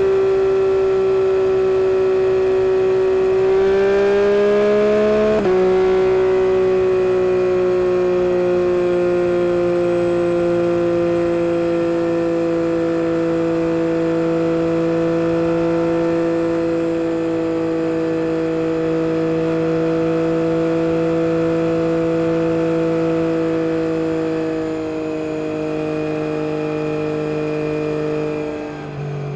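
Yamaha MT-09 SP's three-cylinder engine through an Akrapovic carbon race exhaust, running hard at high revs under way. The revs climb for a couple of seconds and then drop sharply at a gear change. They then sag slowly while holding a steady note, and drop again near the end.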